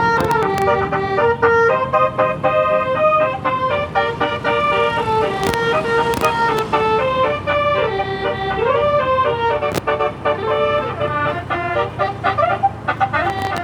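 Bus telolet basuri musical air horn, driven by a Zeta module, playing a tune of quickly changing notes.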